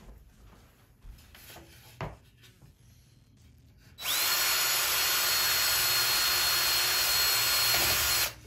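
Cordless drill spinning up about four seconds in and running steadily at speed as it bores out a hole in a wooden block on a balsa model airplane wing, then stopping suddenly.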